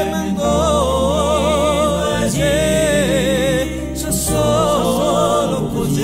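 Background music: a slow song with long melody notes held with vibrato over a steady low bass, pausing briefly between phrases about two and four seconds in.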